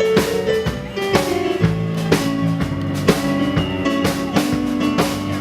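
Music with guitar and a drum kit keeping a steady beat of about two hits a second.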